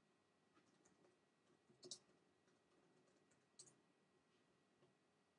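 Faint computer keyboard keystrokes: a scattered handful of short clicks while a search is typed, the loudest a close pair about two seconds in.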